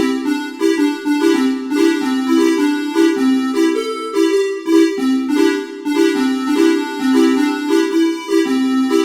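Basuri telolet horn, a multi-trumpet musical horn with its trumpets facing upward, playing a quick repeating tune. The notes change every fraction of a second, often two or three sounding together.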